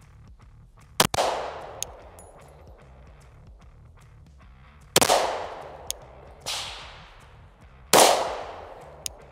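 Four shots from a 10mm Glock pistol, a few seconds apart, each with a long ringing tail. The third shot is softer than the others.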